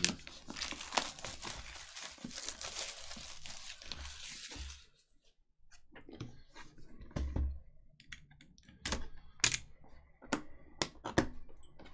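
Plastic shrink wrap being torn and peeled off a sealed cardboard trading-card box: a continuous crinkling tear for about the first five seconds. After a short pause come scattered taps and knocks of the cardboard box being handled and its flap worked open.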